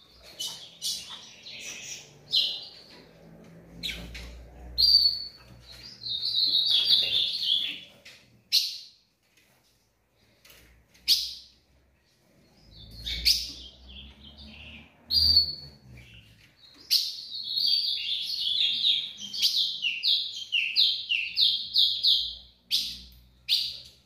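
Caged female ultramarine grosbeak (azulão) giving repeated high, short chirps and brief chirped phrases, ending in a fast run of chirps over the last several seconds.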